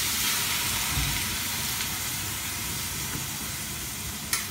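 Chicken broth poured into a hot wok of frying shredded chicken, hissing and steaming loudest in the first second and then easing to a steady sizzle. A sharp click near the end.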